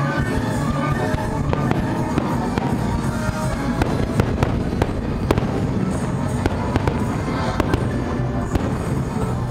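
Aerial fireworks going off in a rapid string of sharp bangs and crackles, thickest in the middle, over loud music played to accompany the display.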